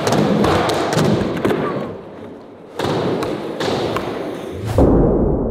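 Skateboard being ollied on flat ground: a series of sharp tail pops and thudding landings over a noisy bed of voices. A deep boom comes in near the end.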